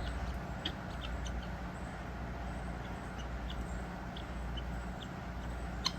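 Central air conditioner's outdoor unit running with a steady low hum, with short high chirps from poultry scattered over it and a sharp click near the end.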